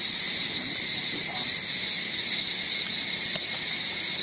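Steady, high-pitched droning chorus of insects, with a few faint, brief calls or voices in the background.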